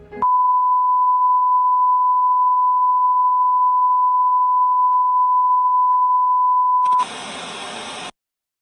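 Television test-pattern tone: one steady, high beep near 1 kHz held for about seven seconds. It gives way to about a second of loud static hiss that cuts off abruptly.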